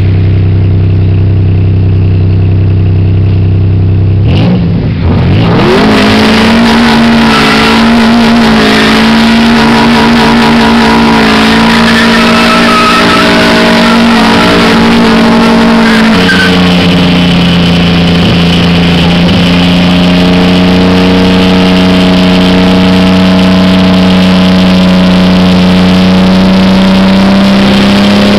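Car burnouts: an engine running steadily, then revving up sharply about four seconds in and held at high revs while the tyres spin and smoke on the asphalt. The engine pitch drops a step about two-thirds of the way through and creeps up again near the end.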